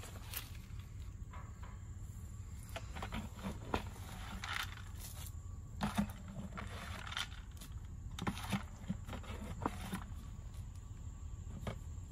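Scattered light rustling, scuffs and small clicks of a person working by hand in brush, handling a plastic bucket of bait and stepping on sandy ground, over a steady low hum.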